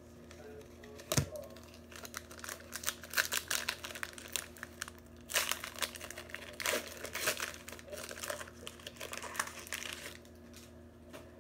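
Foil wrapper of a trading-card pack crinkling and tearing as it is opened and the cards are pulled out, with a single sharp tap about a second in.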